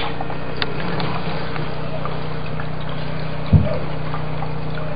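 PC liquid-cooling pump running with water pouring through a waterfall reservoir: a steady hum under a continuous watery hiss. A single low thump about three and a half seconds in.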